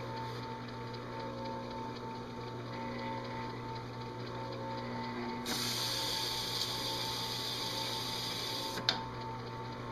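Drill press motor running with a steady hum. About five and a half seconds in, the spinning abrasive disc is pressed onto the metal dash insert for about three seconds, making the hissing grind of engine turning one swirl spot, and it ends with a sharp click as the disc is lifted.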